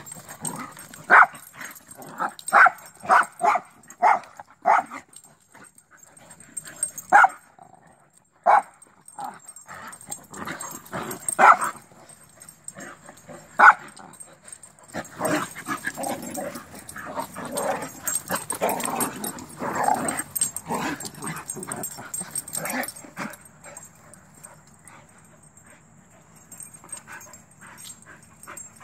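Several dogs play-fighting and barking: short, sharp single barks spaced through the first half, then a denser run of overlapping dog noises from about halfway that dies down near the end.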